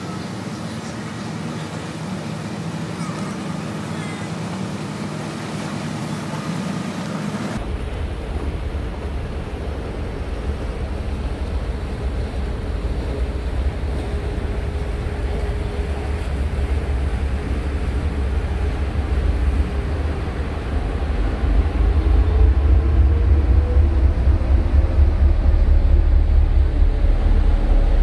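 Diesel engines of a large double-ended passenger ferry running as it manoeuvres alongside a wharf, a deep steady rumble. The sound changes abruptly about eight seconds in. In the last third the engine note rises in pitch and grows louder as power is applied.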